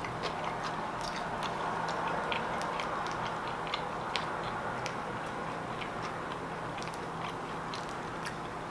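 Mouth noises of someone chewing a fried chicken sandwich close to the microphone: irregular soft clicks over a steady room hiss and low hum.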